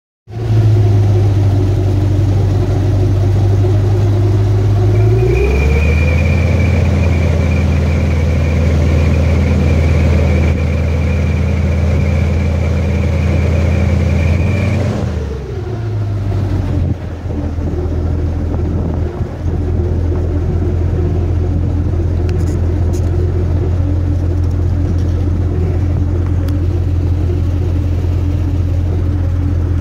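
Airboat engine and propeller running with a deep steady hum. About five seconds in the throttle opens: the pitch rises and a high whine joins it. About fifteen seconds in it throttles back and settles to a lower steady run.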